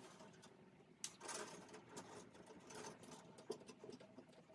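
Faint rustling and scattered small clicks of electrical wires and plastic wire nuts being handled and joined, the sharpest click about a second in.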